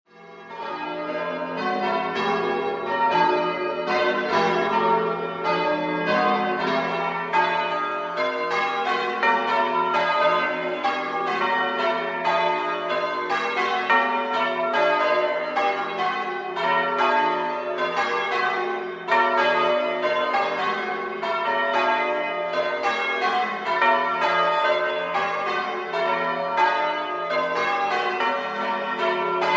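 A ring of six church bells change ringing, striking one after another in a continuous, even stream. The ringing comes in suddenly from silence at the start and carries on unbroken.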